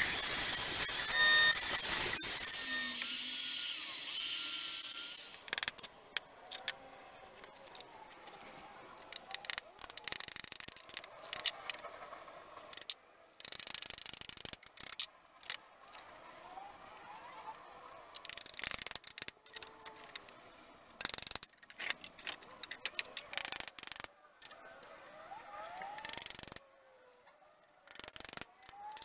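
A woodworking combination jointer-planer running as a board is fed across it, with a steady machine hum and whine for about the first five seconds. Then intermittent knocks, wood handling and short power-drill bursts as a wooden frame is assembled.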